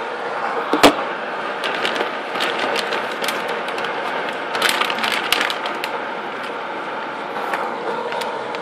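Scattered sharp clicks and light knocks over a steady hiss. One louder click comes about a second in, and a quick run of clicks falls around the middle.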